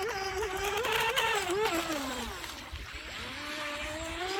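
Atomik Barbwire brushless RC racing boat's electric motor whining as it runs across the water, the pitch wavering up and down with throttle. It fades away about two seconds in, then comes back with rising pitch.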